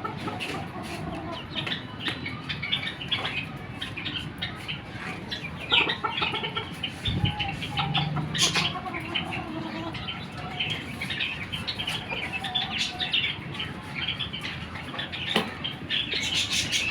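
A flock of Silkie chickens clucking and chirping, with many short high chirps overlapping throughout and a lower call about eight seconds in.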